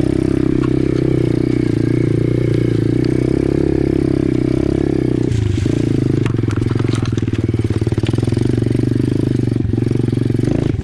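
Apollo 125cc pit bike's single-cylinder four-stroke engine running steadily as it crawls along the trail, its note shifting briefly about five seconds in. Around six to seven seconds in, the bike clatters as it rolls over roots and logs.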